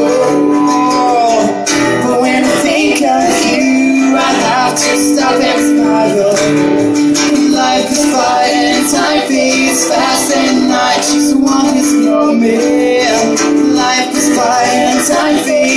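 Live acoustic pop band playing: two acoustic guitars strumming under male and female voices singing together in sustained, wordless harmony.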